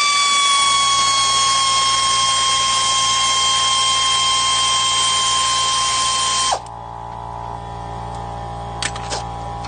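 A cordless power tool's electric motor whining steadily at high speed, its pitch sagging slightly under load, while it spins out an engine-mount bolt. It cuts off suddenly about six and a half seconds in.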